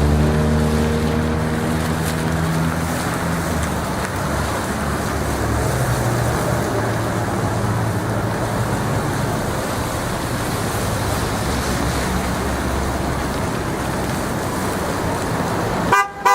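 Road traffic passing on a street: one vehicle's engine is heard at first and fades within about two seconds, then a steady rush of tyres and engines. It is briefly cut off at the very end.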